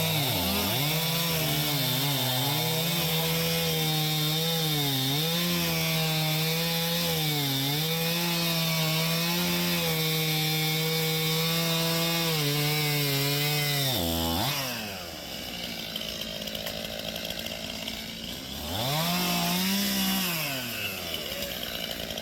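Two-stroke chainsaw held at full throttle cutting through downed tree wood, its pitch dipping briefly several times as the chain bogs in the cut. About fourteen seconds in the throttle is let off and it drops to idle, then it is revved up once for a couple of seconds near the end and settles back to idle.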